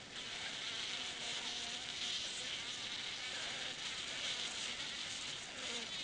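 A steady, high-pitched chorus of night insects.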